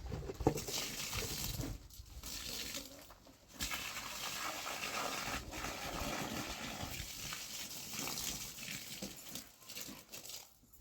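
Water running steadily, as from a tap or hose, with two short breaks in the flow.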